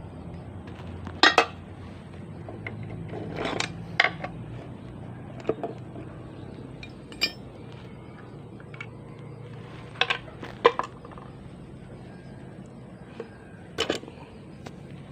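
Metal tools and gearbox parts clinking and knocking together, about eight sharp strikes at irregular intervals, while a manual transmission is being taken apart.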